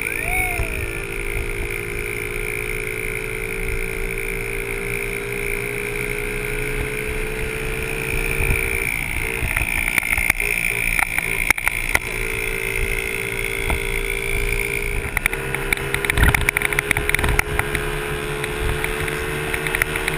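Honda 50cc four-stroke minibike engine running steadily under throttle, heard from on the bike. The engine eases off briefly a little before the middle and again about three-quarters in, and there are rattles and knocks over the rough trail in the last few seconds.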